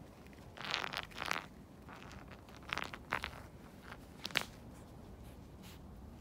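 A small stone scraping and knocking on a rock as a kitten paws at it: short grating noises about a second in and again around three seconds, then a sharp click a little after four seconds.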